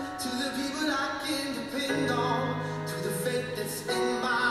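A song playing: singing over instrumental accompaniment, with a held low note from about two seconds in.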